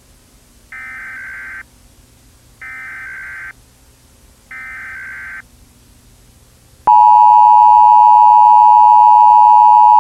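Emergency Alert System (EAS) SAME header: three bursts of warbling data tones, each just under a second long and about a second apart. About seven seconds in, the much louder steady two-tone EAS attention signal begins and carries on.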